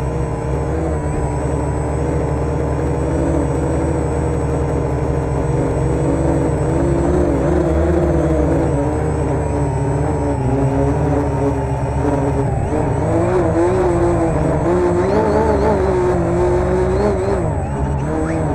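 Electric motors and propellers of a homemade quadcopter running in flight. Their whine holds steady, and its pitch wavers up and down as the motor speeds keep changing, more so in the second half.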